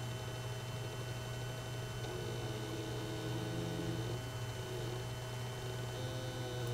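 Stepper motors of a DIY Arduino-controlled laser engraver whining as they drive the laser head along the gantry, their pitch wavering and shifting about two seconds in and again near the end, over a steady electrical hum.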